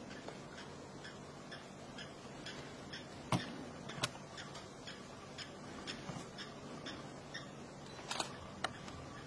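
A quick, even run of faint clicks, with sharper, louder clicks about three and four seconds in and twice near the end.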